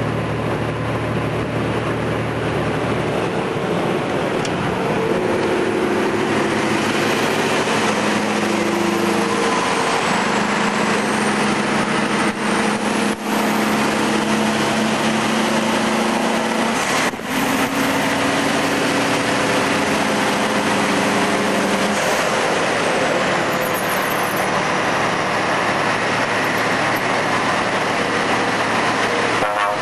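Scania truck engines and tyre-and-wind noise heard from inside a cab at motorway speed, a steady drone whose pitch lines shift up and down in steps as another truck runs alongside. The level briefly dips a few times near the middle.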